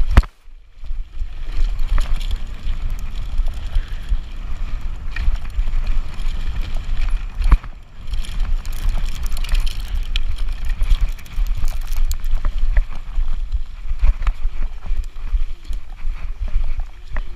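E-bike ridden fast over a rough forest trail: continuous rumble from the bumps, with frequent rattles and knocks from the bike and camera mount. The noise drops out briefly just after the start.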